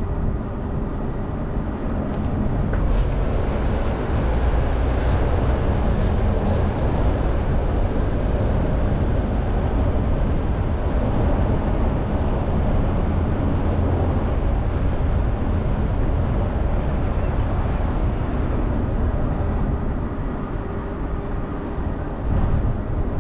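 Car on the move: steady engine and road noise, heaviest at the low end, with no sharp events.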